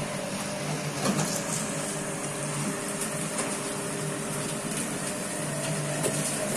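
Seaweed washing machine running steadily, its electric motor humming under the hiss and splash of water spraying over the seaweed, with a couple of light knocks about a second in.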